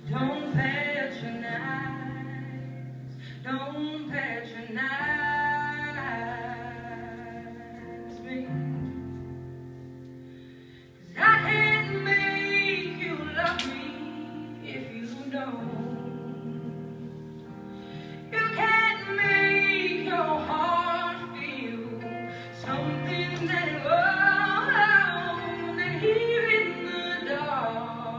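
A song with a singing voice over sustained instrumental backing. The music fades down toward ten seconds in, then comes back suddenly and louder about a second later.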